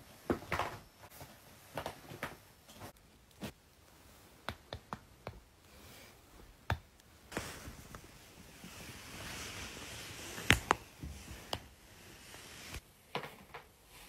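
A string of sharp joint cracks and pops, scattered irregularly, the loudest about ten and a half seconds in. A soft rustle of clothing fills the middle stretch.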